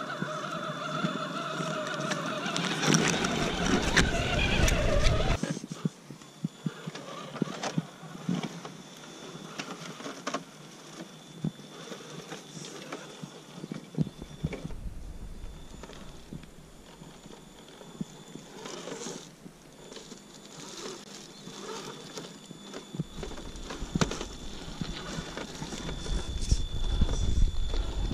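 Electric motor and gearbox of an Axial SCX10 RC scale crawler whining for the first five seconds, then a quieter whine with scattered clicks and knocks of the tyres and chassis on rocks and gravel. The sound grows louder again near the end.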